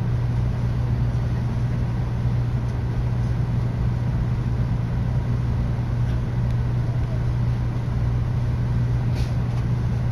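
Steady low hum and rumble inside a Tokaido Shinkansen carriage as it arrives at a station platform, with a couple of faint clicks near the end.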